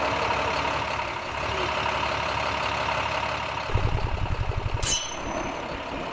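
Truck engine sound effect: a steady running noise, then a rapid low throbbing rumble from about four seconds in, with a brief sharp hiss near five seconds.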